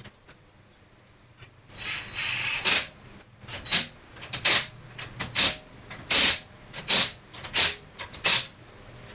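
Rasping strokes of a hand tool working on the car's parts: one longer scrape about two seconds in, then about seven strong strokes a little under a second apart.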